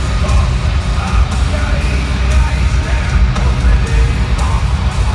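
Live heavy metal band playing through a stadium PA during an instrumental stretch with no vocals, heard from the stands: loud, continuous and heavy in the bass.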